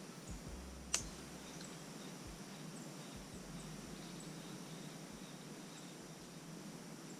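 One sharp click about a second in over a steady low hiss, with a few faint high ticks scattered through.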